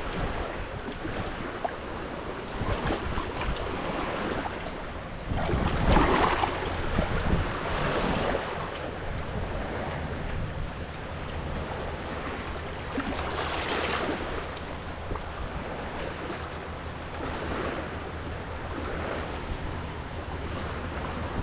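Shallow water sloshing and wind buffeting the microphone, swelling louder several times, with a faint steady low hum underneath from about a third of the way in.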